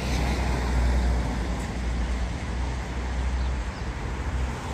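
Road traffic on a wet town street: a steady hiss of tyres on wet pavement over a constant low rumble, loudest about a second in.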